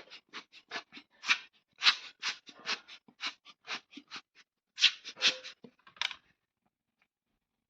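Brush bristles sweeping dust off a laptop motherboard in quick, short strokes, about three a second, stopping about six seconds in.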